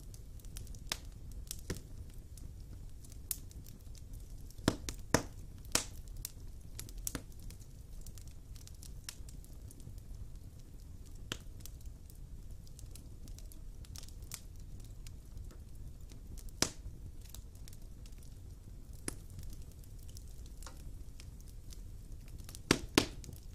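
Wood fire burning in a fireplace, crackling with irregular sharp pops over a low steady rumble. A cluster of louder pops comes about five seconds in, and another near the end.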